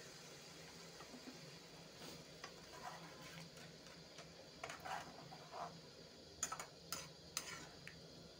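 Metal spatula stirring curry in a metal kadai: faint, scattered clicks and scrapes of the utensil against the pan, the sharpest few clicks near the end.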